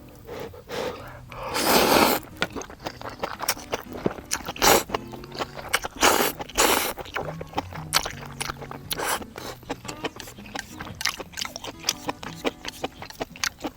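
A person eating ramen noodles: several loud slurps and chewing, with quick clicks of chopsticks against the pot or bowl throughout.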